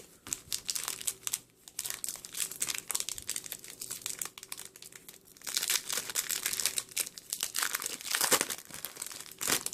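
Foil Yu-Gi-Oh! booster pack wrapper being crinkled and torn open by hand, an irregular crackling that comes in thicker bursts in the second half.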